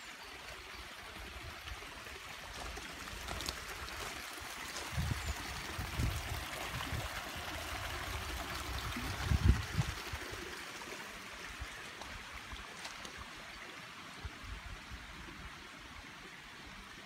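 Water of a small garden stream running and trickling over stones, a steady rush that grows louder in the middle and eases toward the end. A few low thumps on the microphone, the loudest about halfway through.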